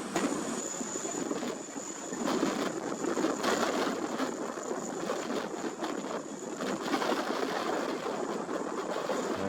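Strong wind and aircraft noise at an airport apron: a steady rushing that swells and eases in gusts, with a thin high whine over it.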